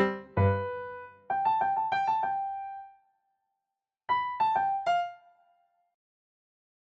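Piano-like keyboard music: a run of struck notes that dies away about three seconds in, then, after a short pause, a phrase of four notes that fades out.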